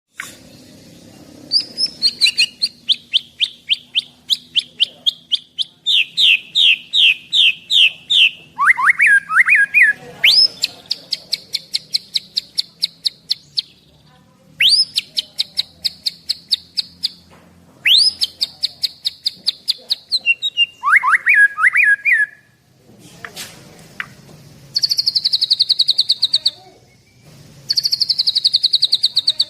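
A white-rumped shama (murai batu) singing loudly in long phrases of rapidly repeated high notes, with short pauses between them. It sings its learned 'isian' songs, taken from other birds. Swooping lower notes come in around 9 and 21 seconds, and faster buzzing trills come near the end.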